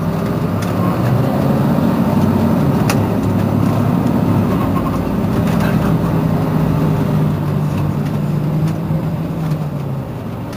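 Mercedes-Benz Citaro C2 city bus's engine idling while standing still, a steady low hum that eases off slightly near the end.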